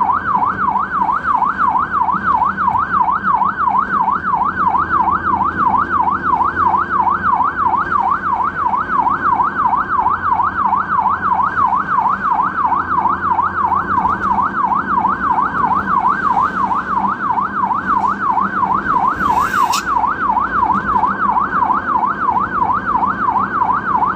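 Ambulance siren in a fast yelp, its pitch swinging up and down about three times a second without a break, over a low steady vehicle rumble. A brief crackle cuts through about three-quarters of the way in.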